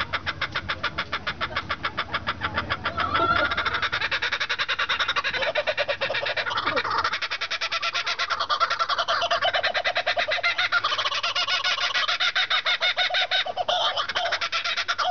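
Two laughing kookaburras giving their laughing call: a long unbroken run of rapid, chuckling notes that grows louder about three seconds in.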